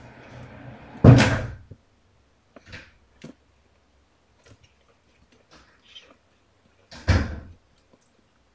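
A door thudding shut twice, about a second in and again near the end, with rustling before the first thud and faint small clicks between.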